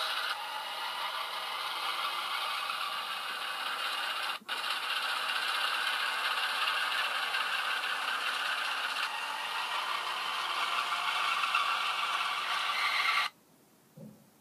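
Hornby Class 08 model shunter's Loksound V4 sound decoder playing its diesel shunter engine sound through the model's small speaker as the locomotive runs, a steady rattling clatter. It breaks off for an instant about four seconds in and cuts off suddenly near the end, followed by one soft thump.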